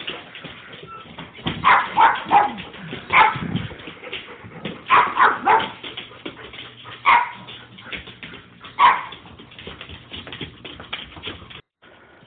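A dog barking in short, loud bursts, several in quick succession, excited at being offered a walk.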